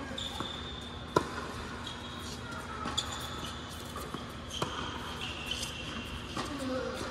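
Tennis ball struck by rackets in a doubles rally: a string of sharp hits, the loudest about a second in, with ball bounces and short high squeaks of shoes on the hard court between them.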